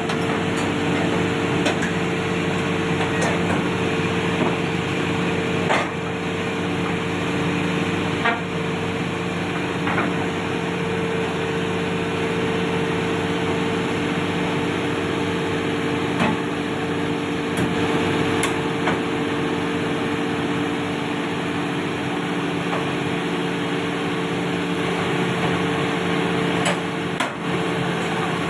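Heavy machinery running steadily with a constant droning hum, with occasional sharp metallic clanks.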